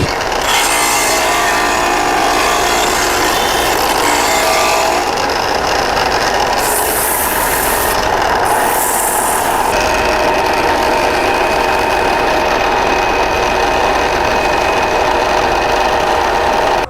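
A power tool running steadily under load as material is worked. Two short, harsher hissing passages come about 7 and 9 seconds in, and the sound cuts off abruptly at the end.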